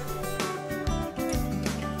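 Background music: short plucked string notes, tagged as guitar, played over a held bass.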